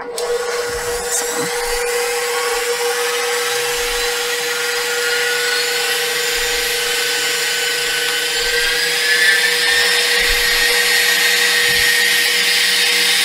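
KitchenAid stand mixer running on high with its wire whisk, beating heavy cream toward stiff peaks: a steady motor whine and whir, switched on at the very start.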